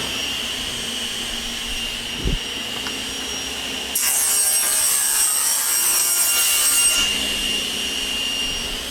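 Older table saw running with a steady whine, ripping a board of plywood for about three seconds midway, the cut louder and hissier, then spinning free again.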